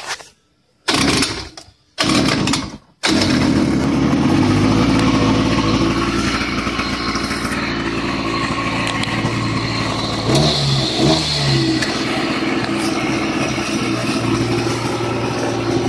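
Small two-stroke engine of an Eton Viper Jr 40cc ATV being pull-started. Two short pulls on the recoil starter, then it catches about three seconds in and keeps running steadily. Its pitch rises briefly twice near the middle.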